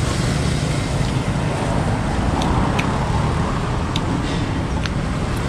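Steady road traffic noise from cars and motorcycles passing along the street, a low continuous rumble with a few faint clicks.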